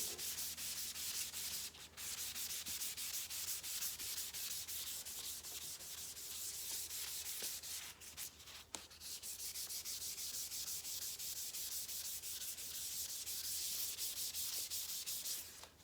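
Fine sandpaper rubbed back and forth by hand over the clear coat of a painted motorcycle side cover, a steady run of quick rasping strokes, cutting back orange peel in the clear.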